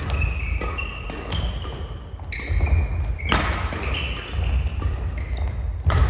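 Badminton doubles rally on a wooden gym floor: sharp cracks of rackets hitting the shuttlecock, with many short squeaks of shoes and thudding footfalls as the players move. The hall echoes.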